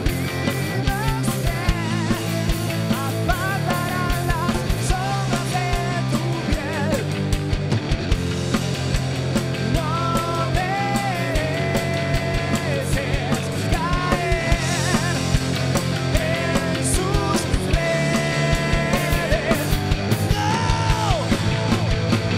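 A rock band playing live: a male singer over electric guitar, bass guitar and a drum kit, with a steady, driving drum beat.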